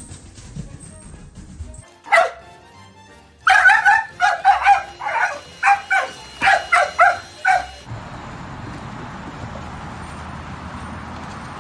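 A dog yips and barks: one sharp falling yelp, then a quick run of about a dozen short, high-pitched barks, roughly three a second. A steady background hiss takes over near the end.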